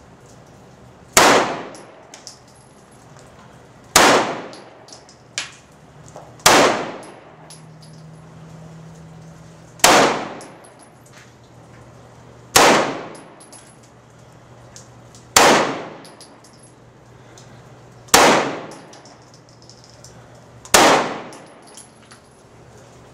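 Eight gunshots fired one at a time, about every two and a half to three seconds, each with a ringing echo that dies away over about a second. Faint clicks come between some shots.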